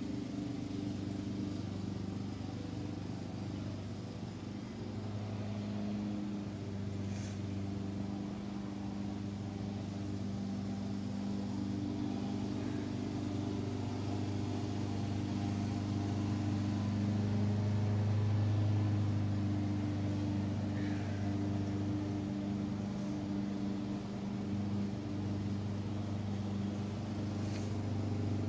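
Steady low machine hum with evenly spaced overtones, unchanging throughout, with a couple of faint clicks.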